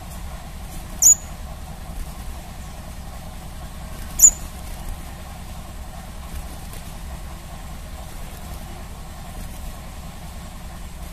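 Crimson sunbird giving two short, sharp, very high-pitched chirps about three seconds apart, over a steady low hum.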